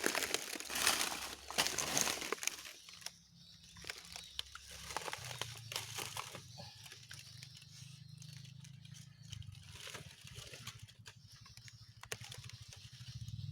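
Crinkling and rustling of something being handled, with scattered small clicks, loudest in the first two seconds or so. A faint low steady hum comes in about five seconds in.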